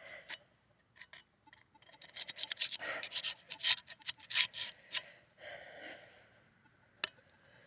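Close scratching and rubbing: a quick run of rough scrapes for about three seconds, then a softer rub and a single sharp click near the end.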